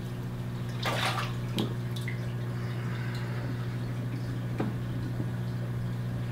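Water splashing in an aquarium as a net-load of live minnows is tipped in: one main splash about a second in, then a few smaller splashes and drips. A steady low hum runs underneath.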